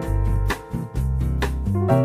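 Background music: a melody over a bass line with a steady beat.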